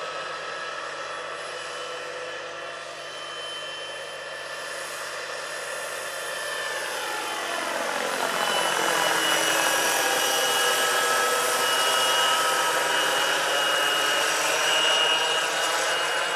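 Jakadofsky Pro 6000 model gas turbine whining and rotor noise of a large RC scale EC-120 helicopter in flight. It grows louder about halfway through as it passes overhead, and the pitch of its tones slides as it goes by.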